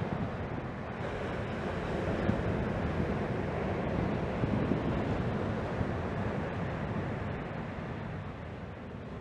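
Surf breaking and washing up the beach, with wind buffeting the microphone. The noise swells in the middle and eases off near the end.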